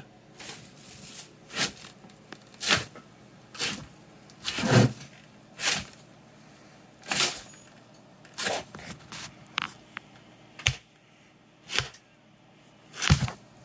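Short rustling scrapes at uneven intervals, roughly one a second, each lasting a fraction of a second.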